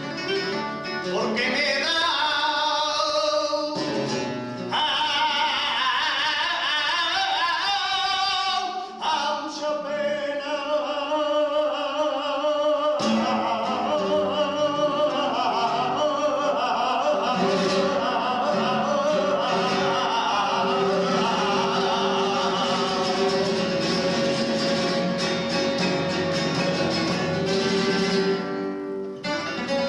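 Male flamenco singer singing in a wavering, ornamented line over a flamenco guitar accompaniment.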